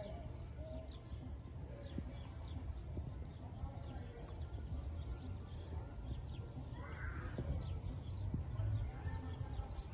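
Outdoor rural ambience: birds chirping on and off over a steady low rumble.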